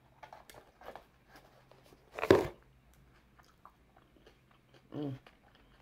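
Close-miked eating of seafood-boil food: biting and chewing with soft wet mouth clicks, and one loud crunching bite about two seconds in.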